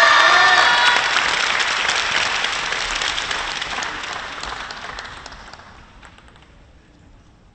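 Crowd applause in a sports hall, fading away over about six seconds.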